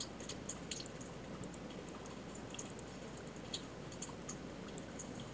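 Faint, irregular small clicks of a computer mouse, a few per second, over a steady low background hiss.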